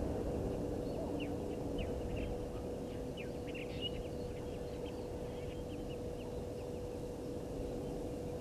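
Steady outdoor background rumble with a constant low hum, and a quick run of faint, high bird chirps for a few seconds in the middle.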